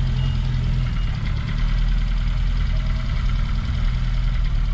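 Reliant Regal three-wheeler's four-cylinder engine running steadily at an even speed, heard from inside the car.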